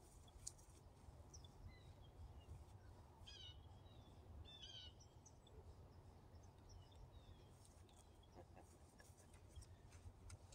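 Near silence: a faint outdoor background with a low rumble, and a few faint chirping bird calls about one and a half, three and a half, and four and a half seconds in.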